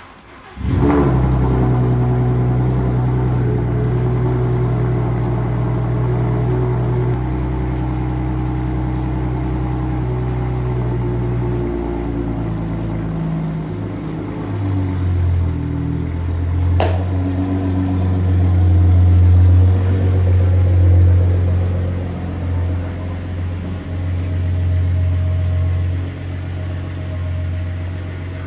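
Ford Raptor pickup's engine running as the truck is driven, starting abruptly and shifting down in pitch in steps part-way through, with one sharp click a little after halfway.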